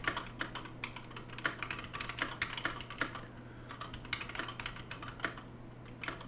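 Typing on a TADA68 mechanical keyboard with Gateron Clear linear switches (35 g, non-tactile) in a thick plastic case: a quick, irregular clatter of keystrokes with a short pause about halfway through.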